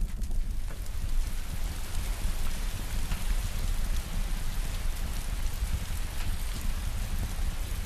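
Intro sound effect: a steady hiss with faint scattered crackles over a low rumble, like burning flames or heavy rain.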